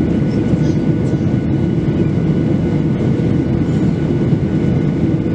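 Steady cabin noise inside a Boeing 737-800 in flight: a loud, even rumble of airflow and its CFM56-7B jet engines, heard from a window seat over the wing, with a faint steady whine on top.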